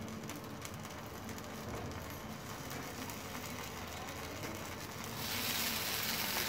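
Soft, steady sizzling of a semolina (rava) pizza base cooking in a nonstick tawa over a low gas flame, growing louder and hissier about five seconds in.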